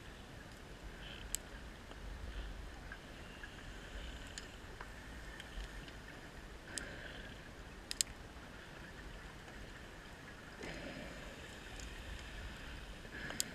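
Underwater ambience: a faint steady hiss with a few sharp, scattered clicks, and a short rush of noise about eleven seconds in.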